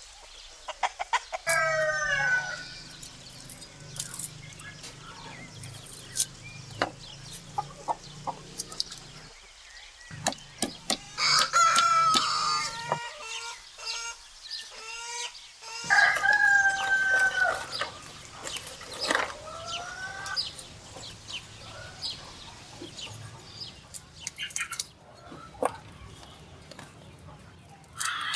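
Roosters crowing several times and hens clucking, with scattered sharp clicks and taps throughout.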